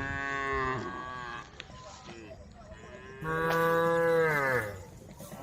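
Cows mooing: two long moos, the second, about three seconds in, louder, each dropping in pitch as it ends.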